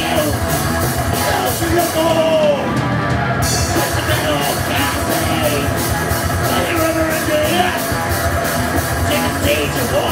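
Loud live punk/metal band playing: distorted electric guitars, drums with regular cymbal strikes, and sung vocals. The cymbals drop out briefly about two seconds in.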